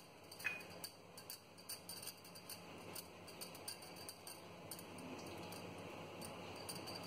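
Faint, soft scraping with scattered light ticks as a spoon spreads pizza sauce over a pizza base.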